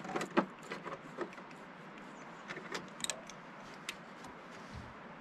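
Scattered light metallic clinks and taps of hand tools working on the lift cylinder fittings of a John Deere 650J dozer: several close together at the start, then a few more after a short pause, over a steady hiss.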